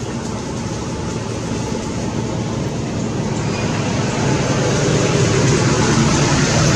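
Steady rumble of a motor vehicle running, with a broad hiss over it, growing slowly louder over several seconds.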